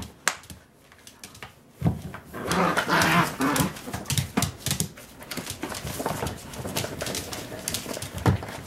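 Chihuahua growling as it tugs and shakes a plush toy, starting about two seconds in, with scattered sharp clicks.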